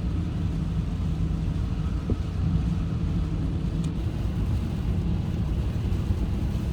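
Subaru car driving at speed: a steady low rumble of engine and road noise.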